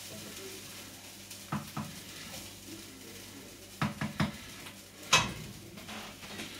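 Cookware being handled on a stovetop: several sharp knocks and clinks of a pot, jug and utensils, the loudest a ringing clink about five seconds in, over light sizzling from the pot.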